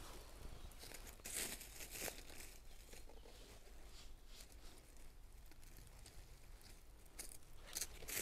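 Dry fallen leaves rustling and crunching in short, faint bursts as someone steps and brushes through the leaf litter, loudest a little over a second in and again near the end.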